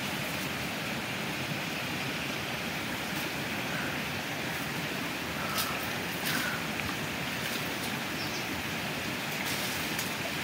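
Steady rushing of a stream, with a few faint knocks around the middle.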